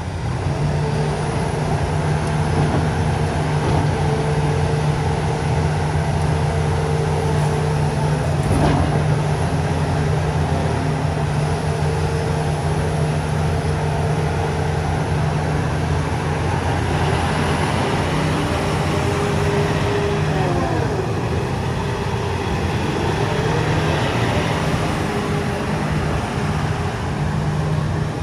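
Hitachi ZX350LCH-6 excavator's Isuzu diesel engine running steadily as the boom, stick and bucket are worked and the upper structure slews, with a hydraulic whine rising and falling in pitch about two-thirds of the way through. A single sharp knock about a third of the way in.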